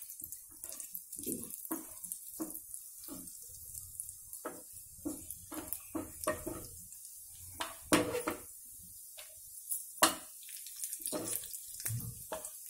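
Flat spatula scraping and knocking irregularly against a nonstick frying pan as cashews are stirred in hot ghee, over a faint steady sizzle. The sharpest knocks come about 8 and 10 seconds in.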